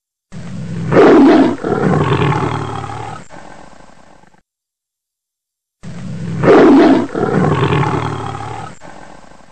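Tiger roaring: the same roar heard twice, each about four seconds long, rising quickly to a loud peak and then trailing off, with a second and a half of dead silence between.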